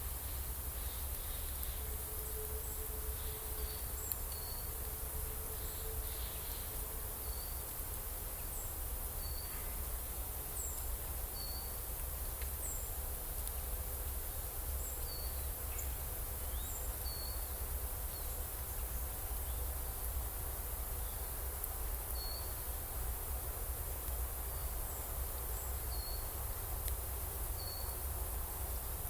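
Woodland ambience: a steady high hiss of insects with short bird chirps every second or two, over a low rumble.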